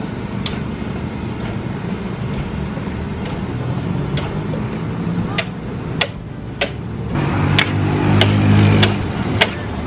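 Metal ladle clanking and scraping against a large steel wok as fried rice is stir-fried over a gas burner, with irregular sharp knocks every half second to a second. A low hum swells in the last few seconds.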